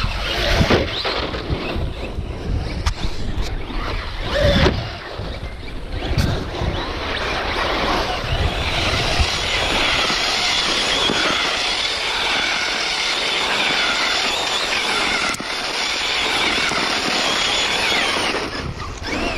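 Radio-controlled Traxxas Slash trucks running on dirt, their electric motors whining up and down over tyre and gravel noise. Wind rumbles on the microphone for the first half. From about halfway the wavering whine is the main sound.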